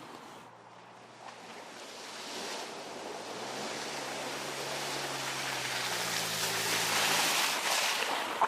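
A car's tyre and engine noise swelling as it approaches, loudest about seven seconds in, then cut off by a short click near the end.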